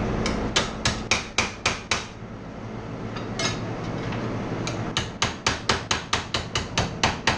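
Hammer blows on metal: a small truck part being straightened on the bench. There are two quick runs of ringing strikes at about four a second, with a pause and a single blow between them.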